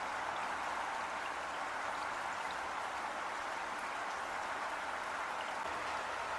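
Heavy rain falling in a steady, even hiss, with faint scattered drop ticks.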